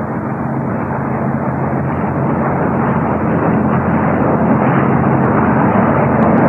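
Droning of propeller aircraft piston engines, a steady low hum under a rushing noise, growing gradually louder.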